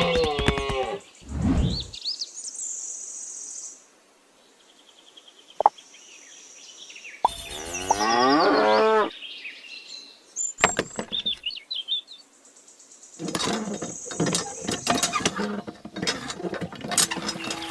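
Cow mooing: one call right at the start and a longer moo about seven seconds in, followed by a run of short clicks and knocks near the end.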